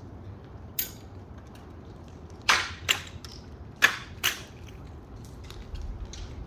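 Hailstones striking a hard surface as scattered sharp knocks, five loud ones among fainter ticks, over a steady low hiss of rain.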